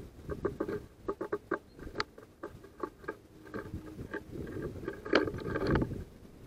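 Irregular taps, clicks and scrabbling of a great tit and a female house sparrow hopping and pecking at seed on a wooden feeder tray close to the microphone, with a louder cluster of knocks about five seconds in.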